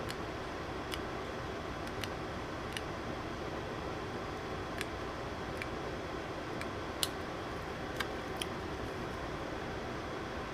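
Steady fan-like hiss with scattered light clicks, about ten in all, the sharpest one about seven seconds in.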